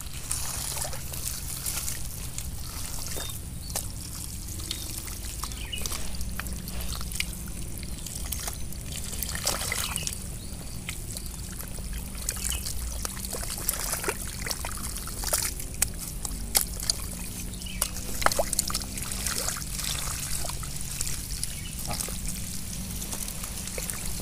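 Wet mud squelching and shallow water splashing as hands dig through a swampy mud bed and feet tread in it. The squelches and splashes come irregularly throughout.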